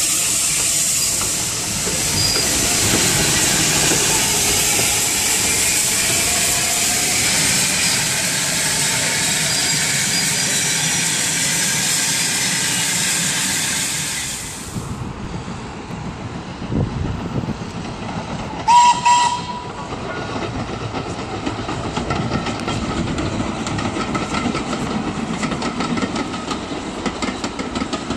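Unrebuilt Bulleid Battle of Britain class steam locomotive 34070 Manston passing close by with a loud, steady hiss of steam. The hiss cuts off about halfway through, giving way to a train heard from farther off, rolling steadily, with a short steam whistle blast about two-thirds of the way in.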